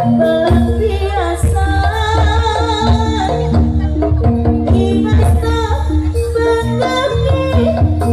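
Javanese jaranan gamelan ensemble playing: a repeating melody of held, stepping notes over a continuous low percussion backing.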